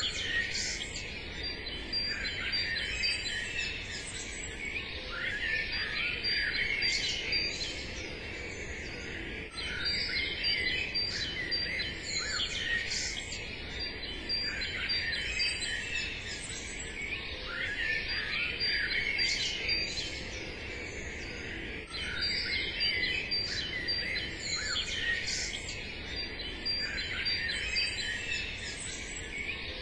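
Many small birds chirping and singing at once, a dense chorus of short overlapping calls and trills that never stops.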